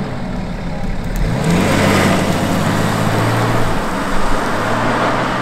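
BMW 730d (F01) 3-litre turbodiesel accelerating away, its note boosted by a retrofitted active sound exhaust actuator into a deep V8-like burble. The pitch rises about a second in, then holds as a steady low drone.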